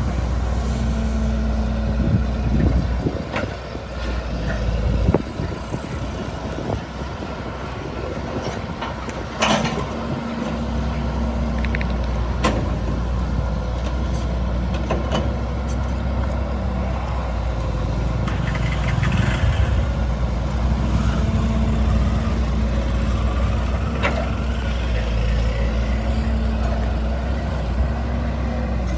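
Excavator's diesel engine running steadily, with a faint whine that comes and goes and several sharp knocks and clanks. The loudest knock comes about a third of the way in.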